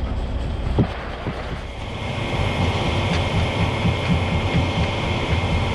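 Concrete mixer truck running during a concrete pour, with a few knocks at first. About two seconds in, the engine and drum noise steps up into a louder, steady pulsing run.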